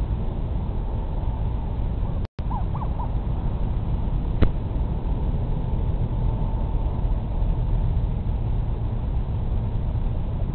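Steady wind rumble on an outdoor microphone. About two and a half seconds in the sound cuts out for a moment, a few short chirps follow, and a single click comes about two seconds later.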